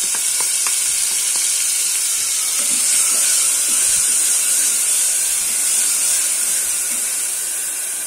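Ground shallot paste sizzling steadily in hot oil in an aluminium pressure cooker, stirred with a wooden spatula that lightly scrapes and taps the pan.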